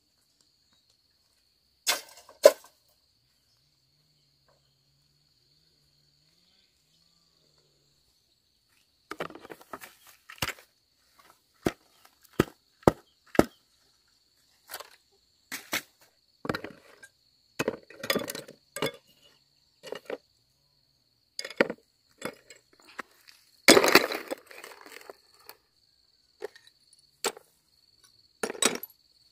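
Irregular knocks, clinks and clatters of hard objects being handled and set down, starting with two near the start and coming thick and fast from about a third of the way in, loudest near the end. A steady high-pitched cricket drone runs behind them.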